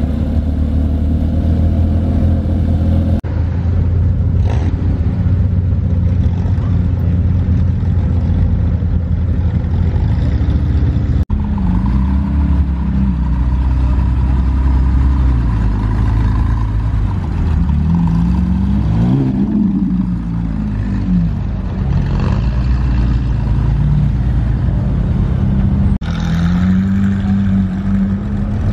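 Sports car engines running as the cars pull away slowly one after another: a Porsche 911 Turbo's flat-six, then other Porsches, then a McLaren 720S twin-turbo V8. About two-thirds of the way through, one engine revs up and back down.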